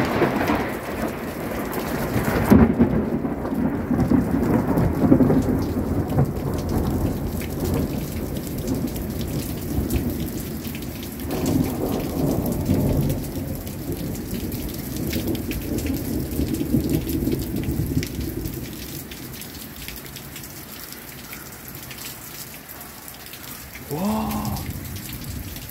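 Thunder rolling in a long low rumble through steady heavy rain. The rumble swells at the start, again a couple of seconds in and about eleven seconds in, then fades away, leaving the rain.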